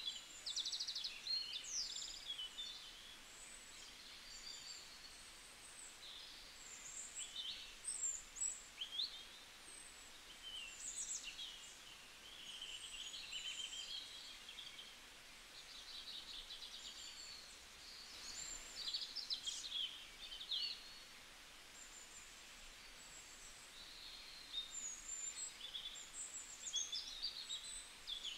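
Small birds chirping and singing on and off throughout, with fast trills and short whistles that slide up and down in pitch, heard faintly over a quiet hiss.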